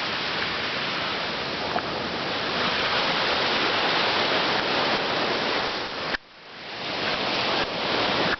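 Steady rushing noise that drops out abruptly about six seconds in and slowly swells back.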